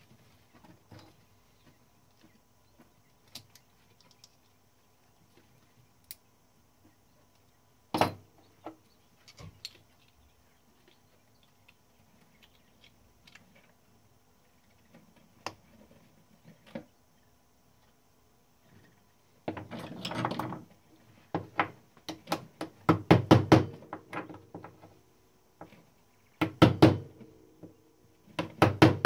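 Clicks and knocks of tools and small metal parts being handled on a Klein Adler 2 typewriter under repair, with one louder knock about eight seconds in. From about two-thirds of the way through come quick runs of clicking and rattling from the mechanism.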